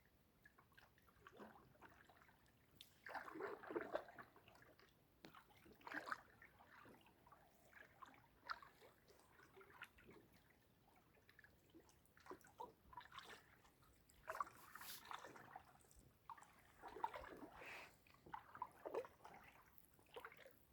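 Kayak paddle dipping into lake water, faint sloshing splashes and drips coming irregularly every couple of seconds.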